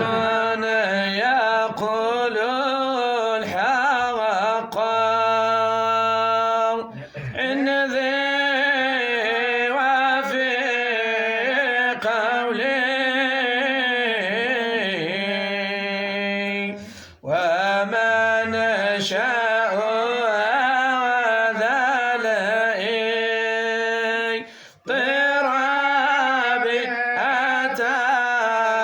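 A man chanting an Arabic Sufi qasida without accompaniment, in long drawn-out melodic phrases. Brief breath pauses come about 7, 17 and 25 seconds in.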